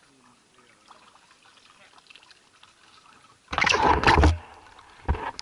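Water sloshing and splashing against the camera's housing at the surface of shallow water: a sudden loud rush about three and a half seconds in after a quiet stretch, then a single knock about a second later.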